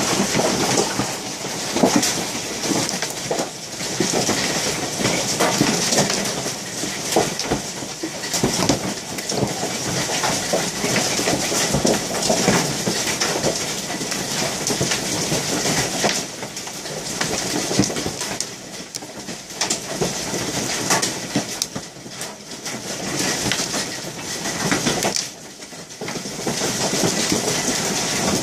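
Hailstones pelting the window glass and the ground with the hiss of heavy rain: a dense, irregular clatter of sharp hits that eases briefly near the end.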